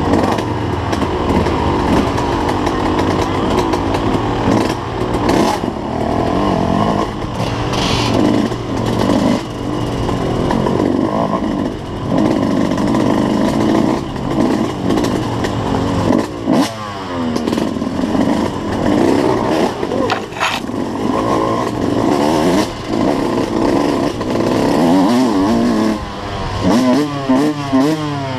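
Suzuki RM125 two-stroke dirt bike engine being ridden hard on a rough trail, its pitch rising and falling again and again with throttle and gear changes. A few sharp knocks stand out over the engine.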